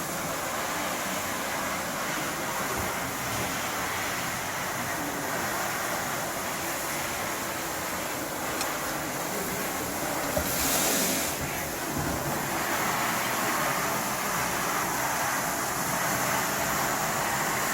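BENNETT R660B ride-on wet floor scrubber running, a steady mechanical whir and hiss from its brushes and suction, with a brief louder hiss about ten seconds in.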